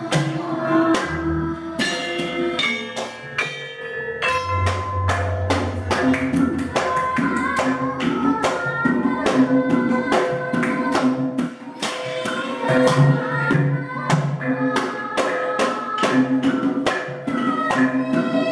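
Javanese gamelan ensemble playing a fast, busy piece: a dense run of struck bronze gong-chimes and metallophones with kendang drumming. Deep gong strokes come in about one second and four seconds in.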